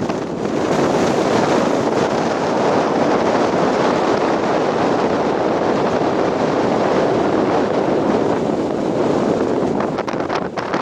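Strong gale-force wind blowing across the microphone in a loud, steady rush, with sea surf mixed in.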